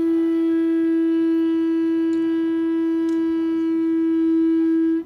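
A night watchman's curved animal horn blown in one long, steady note, stopping abruptly near the end: the old alarm signal for a fire at night.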